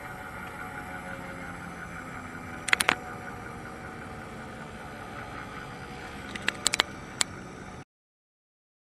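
Bench grinder motor running with a steady hum, with a few sharp clicks about three seconds in and a second cluster near the end. The sound cuts off suddenly near the end.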